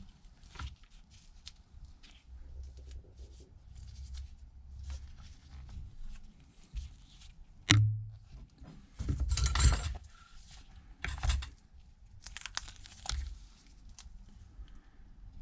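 Thin adhesive tape (1 mm Tesa tape) being pulled and handled while it is laid around a tablet's screen edges: a sharp click a bit before the middle, then a few short rasping, tearing bursts.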